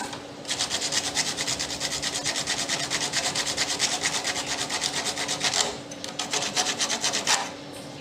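Emery paper rubbed rapidly back and forth on a refrigerator's rusted pipe ends, scouring off rust before a new filter drier is joined in. The strokes pause briefly twice in the second half.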